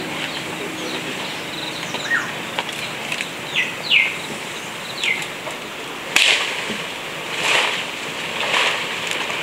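Outdoor bird calls: a few short whistles that fall in pitch, with a sharp click about six seconds in and two brief rustling swishes near the end.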